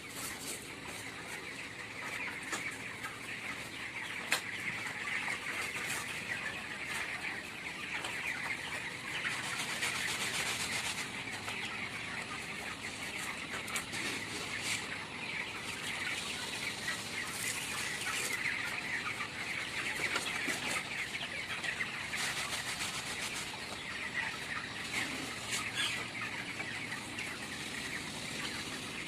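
A large flock of young broiler chickens calling together in a steady, dense chorus of peeping and clucking, with scattered sharp clicks.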